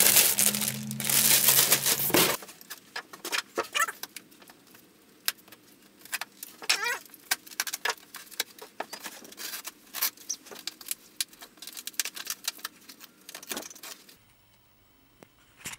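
Clear plastic wrap crinkling loudly as a hand pulls at it, stopping abruptly after about two seconds. Then scattered quieter taps, clicks and rustles of cardboard boxes being handled, fading to near silence near the end.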